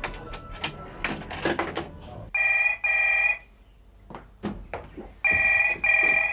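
Telephone ringing for an incoming call in the British double-ring pattern: two ring-rings, each a pair of short rings, about three seconds apart. A few sharp clicks and knocks come before the first ring.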